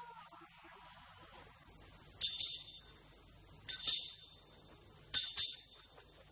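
Three sharp clinks about a second and a half apart, each a quick double strike with a short bright ring. A held musical note fades out in the first second.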